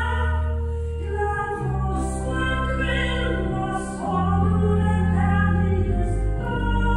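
Church pipe organ playing slow, held chords over deep bass notes, the harmony changing every couple of seconds.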